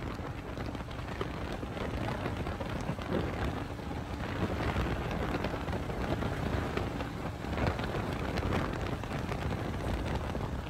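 Wind rushing over the microphone with road and engine noise from a vehicle driving along a paved road: a steady, dense rumble and hiss.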